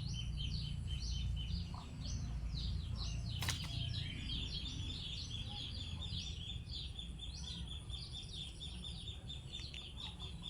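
Birds chirping over and over above a steady high tone, with a continuous low rumble underneath and one sharp click about three and a half seconds in.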